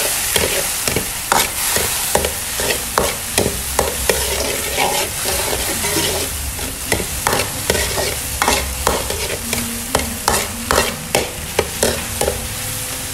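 Shallots, tomato and crab roe sizzling in hot oil in a wok, frying until fragrant, while a metal ladle stirs them, scraping and clinking against the wok in quick irregular strokes.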